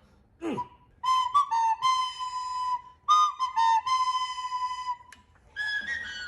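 Recorder playing two short phrases, each a few quick notes that settle onto a long held note. A higher note starts and is held near the end.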